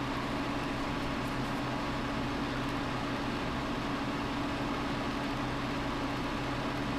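Steady background hum with hiss, unchanging, with a low steady tone under it.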